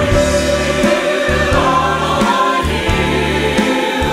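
Mixed SATB choir singing a jazzy blues choral arrangement in close harmony, over an instrumental accompaniment with a moving bass line.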